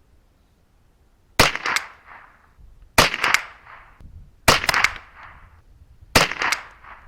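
Four shots from a Ruger 10/22-pattern semi-automatic .22LR rifle, firing Winchester 36 grain copper-plated hollow points about a second and a half apart, each a sharp crack with a short tail.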